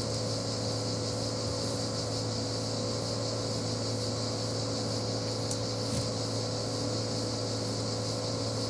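Steady mechanical hum with a few fixed low tones under a high hiss, and a faint click or two about midway.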